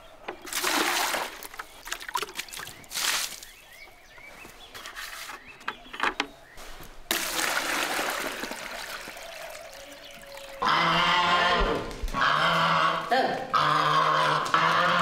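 Water poured from a plastic bucket into another bucket, splashing, in two pours. About two-thirds of the way in, loud repeated calls take over.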